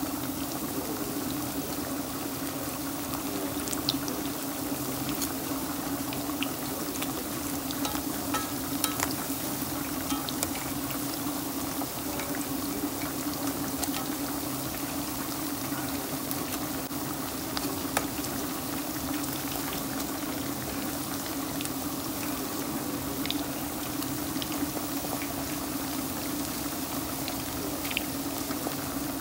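Battered chicken pieces deep-frying in hot oil: a steady bubbling sizzle with scattered sharp pops and crackles, over a steady low hum.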